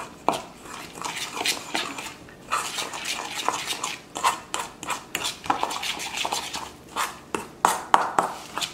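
A utensil stirring and scraping in a mixing bowl, in repeated irregular clicks and scrapes, as mineral water is worked into cornmeal bread dough.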